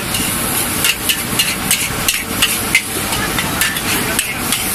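Metal wok spatula striking and scraping a large steel wok while stir-frying noodles, about three uneven clanks a second over a steady hiss.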